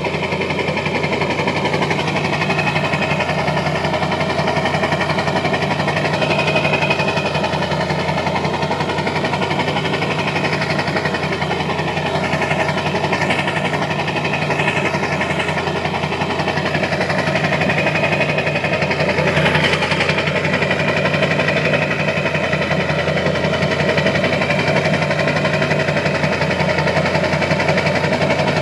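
Ford 7.3 L Power Stroke turbo-diesel V8 idling rough and uneven, a rough idle that comes with its modified high-pressure oil pump (HPOP).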